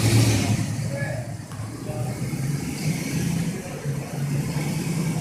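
Dodge Durango's engine running at low revs as the SUV crawls up onto a concrete ramp, with a brief swell in level right at the start.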